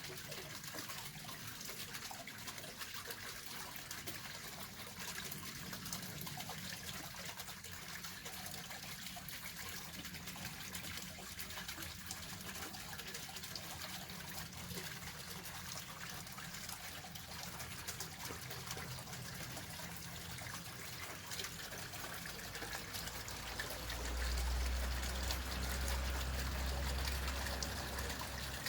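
Steady trickling or running water, with a low rumble coming in near the end.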